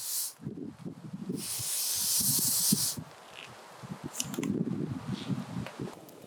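A steady spray-like hiss about a second and a half long, starting and stopping abruptly, amid irregular low rustling and bumping.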